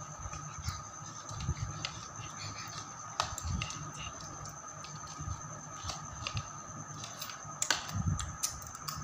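A metal spoon clicks and scrapes against a bowl as vermicelli is stirred and scooped, in scattered small clicks. A faint steady whine runs underneath.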